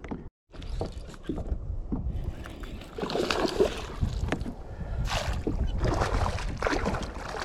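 Water splashing and sloshing around a small fishing boat, with scattered knocks, over a steady low rumble. There are bursts of splashing about three seconds in and again near the end.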